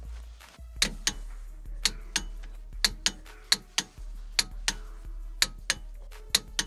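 Hand socket ratchet working the nuts on a wheel spacer: sharp metallic clicks, mostly in pairs, about one pair a second.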